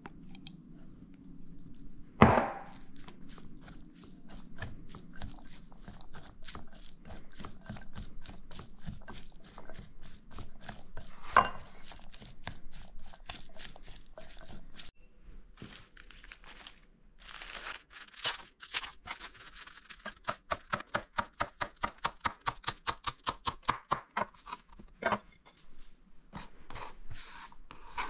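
A utensil stirring through a glass bowl of mayonnaise-dressed fish salad, scraping and clicking against the glass, with two sharp knocks on the bowl. Later a knife chops lettuce on a wooden cutting board in a quick, even run of strokes, about four a second.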